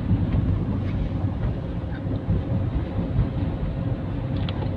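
Steady low rumble of a car driving, heard from inside the cabin: engine and tyre noise on a paved road.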